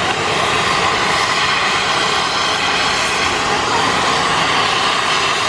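Steady turbine whine and rush from an Indian Air Force Mi-17 helicopter on the ground, with no rotor beat.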